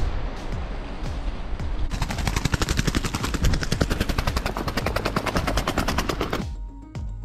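A bird just hit by a slingshot beats its wings in a rapid flutter against the gravel. The flutter starts about two seconds in and cuts off suddenly near the end.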